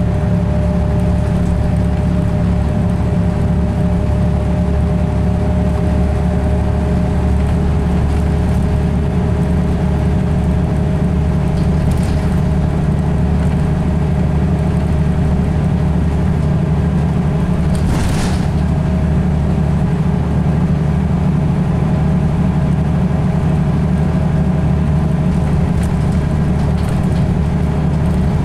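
Onboard sound of a Volvo B7RLE single-decker bus under way: its seven-litre six-cylinder diesel running steadily, a low drone with a steady whine over it. A brief clatter about eighteen seconds in.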